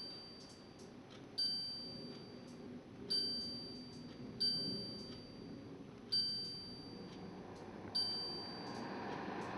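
Philips 3000 series air purifier's touch panel beeping at each press of the fan-speed button: five short chime-like beeps, each ringing off, about one and a half to two seconds apart. Under them the fan's steady rush of air grows louder near the end as the speed is stepped up to the higher levels.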